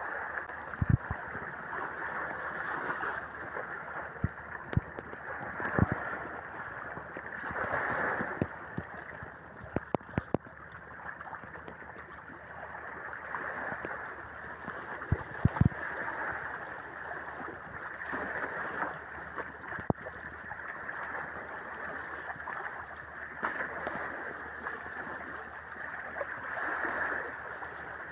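Shallow surf washing in and out over a sandy, rocky shore, swelling every few seconds, with a few sharp knocks or splashes scattered through it.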